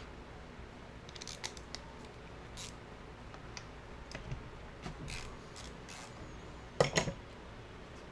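Light metallic clicks and scrapes from hands turning and working on an aluminium motorcycle carburetor body, with a sharper double click about seven seconds in.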